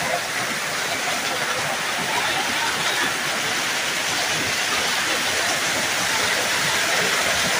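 Steady rushing noise of storm rain and water on a wet road, heard from a moving vehicle.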